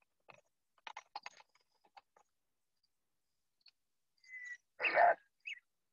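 Sparse short clicks and rustles, then a brief, loud ape call about five seconds in, from a documentary's soundtrack of early apes.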